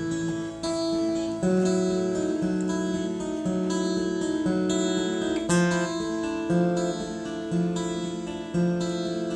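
Steel-string acoustic guitar, a K S Lofquist New Western Jumbo, played solo as a picked instrumental introduction, with a low bass note struck about once a second under ringing higher notes.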